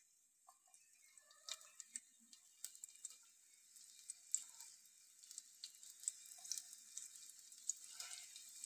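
Chopped onion starting to sizzle in oil on a flat iron tawa: faint crackling and spitting pops that grow louder as the oil heats.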